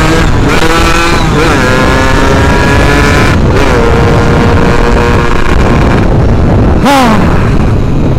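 Yamaha F1ZR's single-cylinder two-stroke engine being ridden hard: its pitch climbs, dips back at each gear change and climbs again, then falls sharply as the throttle closes about seven seconds in. Heavy wind rumble on the camera microphone lies under it.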